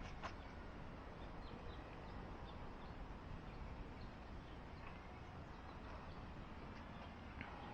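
Steady wind rumble on the microphone, with a few faint, short bird chirps.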